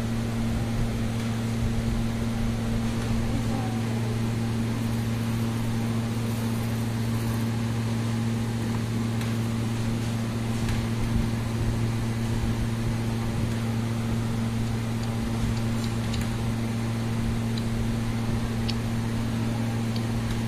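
A steady low hum that holds one pitch throughout, with a few faint ticks in the second half.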